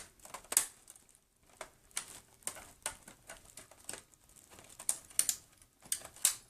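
Irregular sharp clicks and taps of a screwdriver working at the plastic latch notches of an Xbox 360 case, a dozen or so spread over several seconds.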